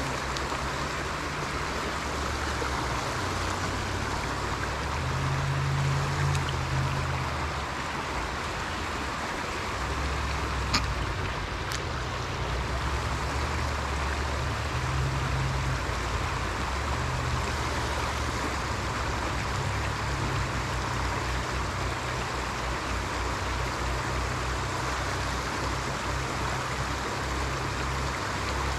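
Water spilling over the edge of a swamp pond, rushing steadily, with a low rumble that comes and goes beneath it. Two sharp clicks about a second apart come near the middle.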